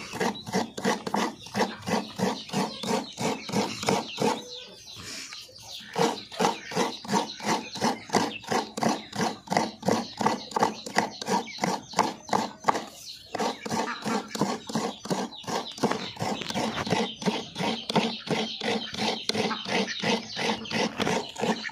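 Half a coconut being grated by hand: a steady run of rasping scraping strokes, about three a second, pausing briefly twice.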